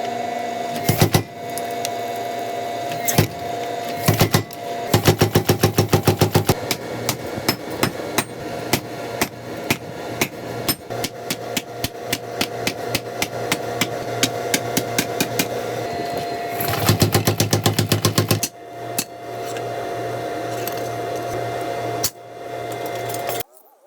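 Hammer blows on hot steel flat bar being forged, struck in runs with fast bursts of about six blows a second, over a steady hum. The sound stops and changes abruptly several times.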